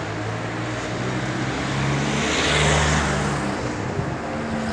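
A motor vehicle passing close by on the street: its engine note and tyre hiss swell to a peak a little past halfway and then fade.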